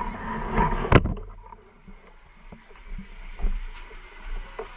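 A single sharp knock about a second in, over rustling noise, followed by scattered faint clicks and knocks.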